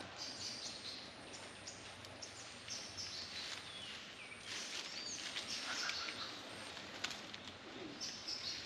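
Outdoor ambience: birds chirping over a steady background hiss, with one sharp click about seven seconds in.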